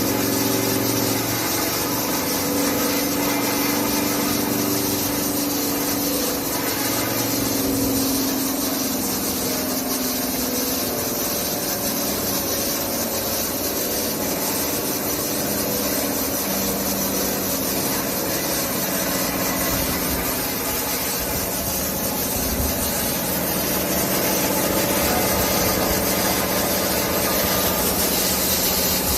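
SCM CL 110K RR wide-belt sander, with two sanding heads and an 11 kW main motor, running: a steady, loud hiss over a low hum, the hum fading after about ten seconds.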